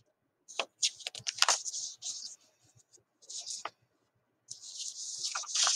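Paper rustling in short bursts with a few sharp clicks, as the pages of a printed booklet are handled and turned.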